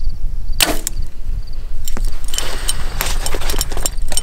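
A Mathews VXR compound bow is shot once about half a second in: a single sharp snap of the string with a short ring. From about two seconds on come clicks and rustling as binoculars are handled. A steady low rumble of wind on the microphone sits under it all.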